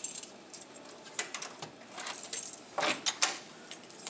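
Hotel room door being unlocked and pushed open: a string of short clicks and rattles from the lock and handle, a few of them sharper near the end.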